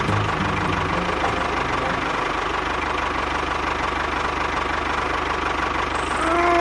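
Small engine of a miniature construction machine running steadily with a fast, even chugging. Near the end a brief tone rises and falls.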